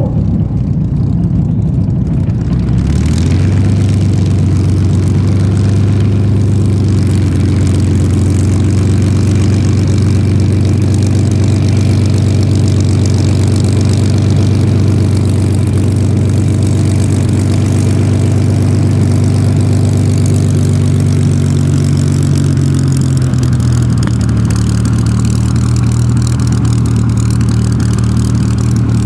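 Supermarine Spitfire's Rolls-Royce Merlin V12 piston engine running steadily with a deep, even drone. The engine note strengthens about three seconds in and drops slightly in pitch a few seconds before the end.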